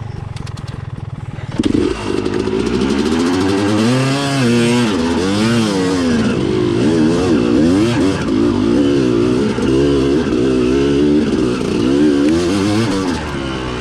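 Yamaha YZ250 two-stroke dirt bike engine running low for under two seconds, then throttled up sharply and revving up and down again and again while being ridden.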